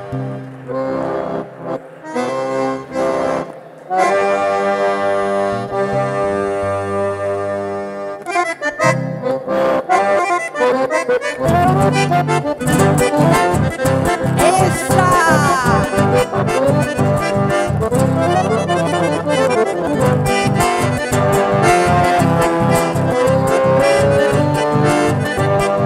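Button accordion playing chamamé with acoustic guitar accompaniment. It opens with slow, held chords broken by short pauses, then from about nine seconds in moves into a quick melody over a steady, even rhythm.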